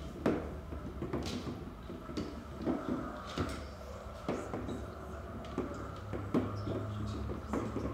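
Irregular wooden clicks and knocks of bobbins being worked on a round braiding stand, over a low steady drone that strengthens about six seconds in.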